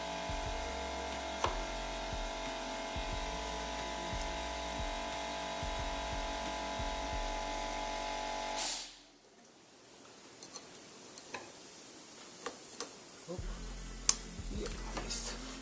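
Background music of held tones over a pulsing low beat that fades out abruptly about nine seconds in. Then quiet handling noise with light clicks and one sharp click near the end, as the fuel-line quick-connect retaining clips are pushed onto the new fuel filter.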